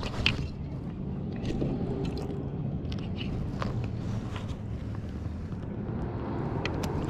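Handling noise as a small largemouth bass is held up after being landed: scattered clicks and scrapes over a steady low rumble.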